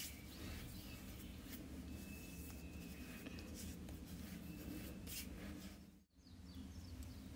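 Hands rubbing together, then rubbing and patting cream into facial skin: soft, repeated swishes of skin on skin, faint over a low steady room hum. The sound drops out for a moment about six seconds in.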